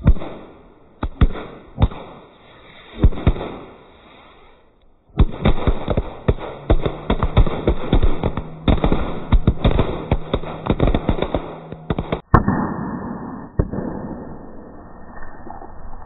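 Bijli firecrackers laid in a ring inside a tyre going off: a few separate sharp bangs, then a dense run of rapid bangs lasting several seconds. For the last few seconds a fizzing spray of sparks takes over, with only the odd bang.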